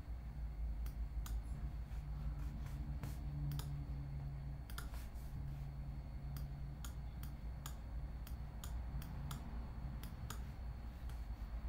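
Irregular light clicks of a computer mouse, several a second at times with gaps between, over a low steady hum.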